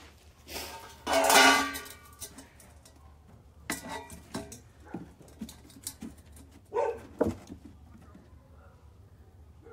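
A dog gives one drawn-out bark about a second in, followed by scattered light knocks and taps.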